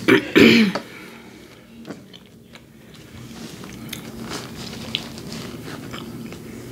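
Close-miked chewing of a shrimp taco: wet mouth sounds and small clicks, with a louder burst in the first second.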